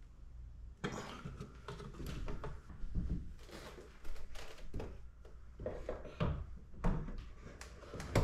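Handling noise of a computer monitor with a metal mounting bracket being lifted and fitted onto a wall-mounted monitor arm: irregular knocks, clunks and rubbing of plastic and metal, several sharper knocks among them.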